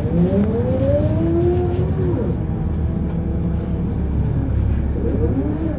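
Volvo B7RLE bus's six-cylinder diesel engine and drivetrain heard from on board, pulling away. The note rises as the bus accelerates for about two seconds, then drops as the gearbox changes up. It climbs again near the end.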